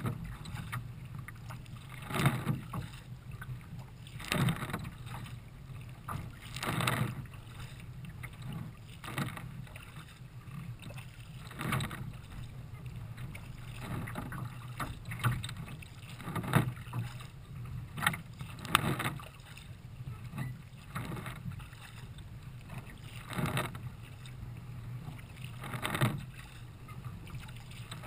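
Choppy water splashing and slapping against the bow of a Nelo racing kayak as it is paddled along, with a splash every two seconds or so over a steady low rush of water and wind.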